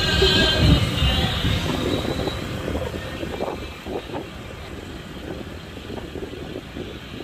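City street traffic: vehicles running past in a steady rumble that grows quieter over the first few seconds, then holds steady.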